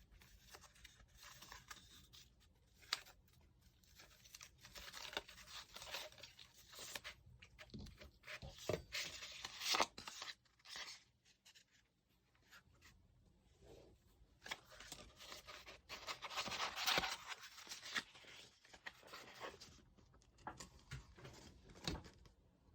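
Parcel being unboxed by hand: packaging torn open and rustled in irregular bursts, with small clicks and knocks as the contents are handled.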